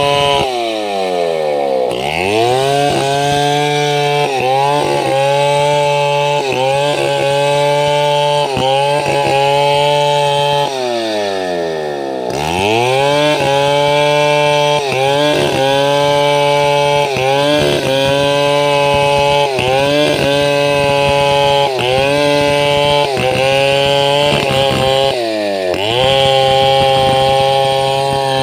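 STIHL 070 two-stroke chainsaw running at high revs while ripping lengthwise through a squared bagalunga log. The engine speed drops and climbs back up three times: near the start, about 11 seconds in and about 25 seconds in, with small wavers in pitch as it cuts.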